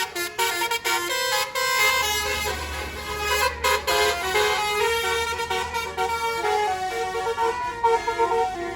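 Bus telolet basuri musical air horn playing a tune of quick stepping notes. A low engine rumble joins underneath about two seconds in.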